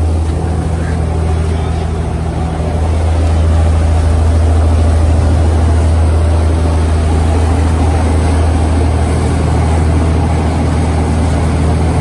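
Fishing boat's engine running at cruising speed, a steady low drone, over the rush of its churning wake water.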